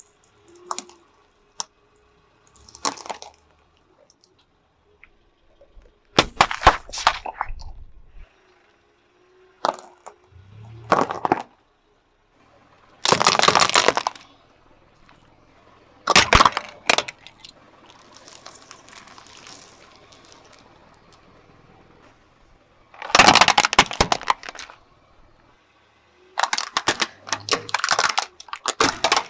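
A car tyre rolling onto and crushing one object after another, heard as about eight separate bouts of cracking and crunching with short pauses between them. The last bout is plastic toy trucks snapping under the wheel.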